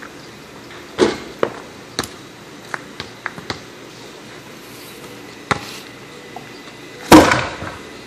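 Sharp knocks and clanks from a long tube of taped-together metal cans and a stick being handled: a loose run of single knocks over the first few seconds, another about five and a half seconds in, and the loudest one about seven seconds in as the tube is lifted.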